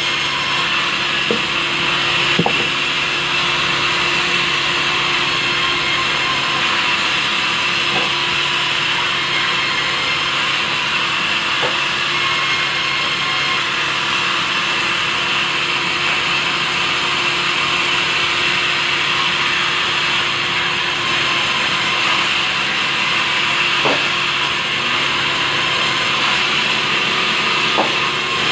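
Sawmill band saw running steadily as it rips long timber planks, cutting through soft wood. A few faint knocks come from the wood being handled on the table.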